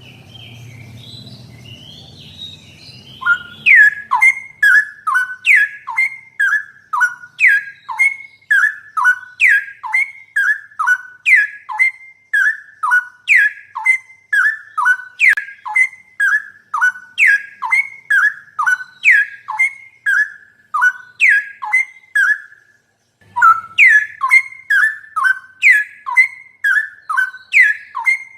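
Straw-headed bulbul (cucak rowo) song: loud, clear whistled phrases of falling notes repeated about two a second, starting about three seconds in after faint chatter, with a short break near the end before they resume.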